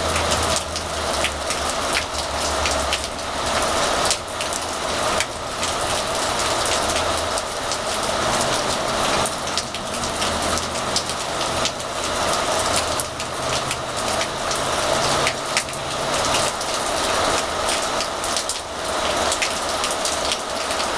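Steady rain falling, with many separate drops striking close by. A faint low hum runs underneath at times.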